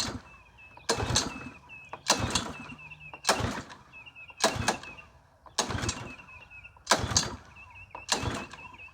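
Lawn mower engine's recoil starter pulled over and over, about once a second, without the engine catching. This is a hard-starting engine that the owner suspects needs its carburetor gone through again.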